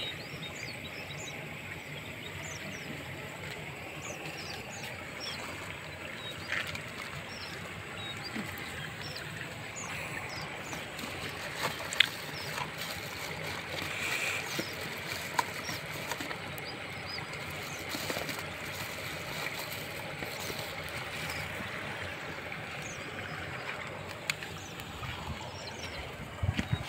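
Steady outdoor background noise with faint high chirps, and a few light clicks and rustles of a plastic food bag and a spoon being handled.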